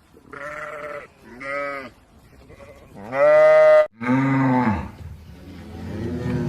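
An animal calling over and over: about five drawn-out calls, each rising and falling in pitch, the loudest about three seconds in.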